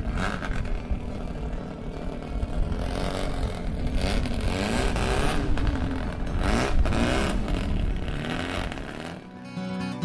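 Racing car engine sound: engines revving hard, the pitch rising and falling several times through the middle.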